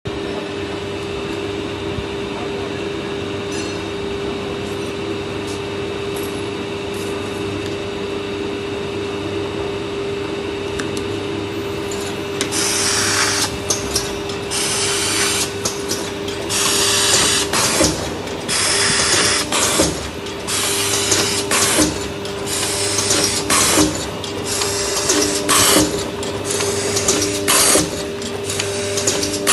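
Automatic paper dona (bowl) making machine running with a steady hum and a constant tone. From about twelve seconds in, short hissing bursts come about one or two a second as the machine cycles.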